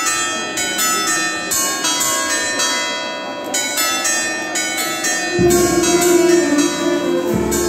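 Church bells ringing a rapid festive peal, strike after strike overlapping and ringing on, rung as a statue of the Madonna is carried out of the church in procession. A deeper held tone joins about five seconds in.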